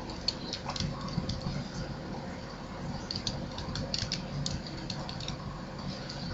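Computer keyboard keystrokes typing out a long number: a few separate taps, then a quick run of them about three seconds in, over a low steady background hum.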